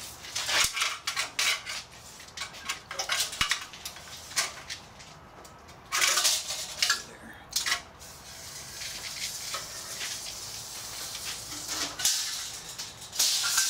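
Steel tape measure being pulled out and worked along a riveted metal aircraft spar: a run of metallic clicks and rattles, then longer scraping swishes about six seconds in and again near the end.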